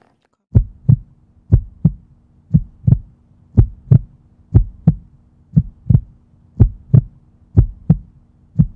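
Heartbeat sound effect: a steady double thump, lub-dub, about once a second, over a faint low steady hum.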